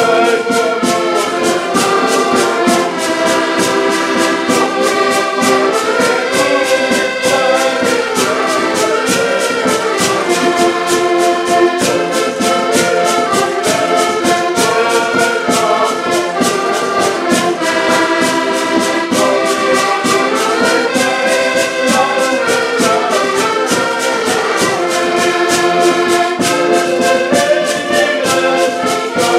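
An ensemble of button accordions playing a tune together in full chords, with a steady beat from the bass side.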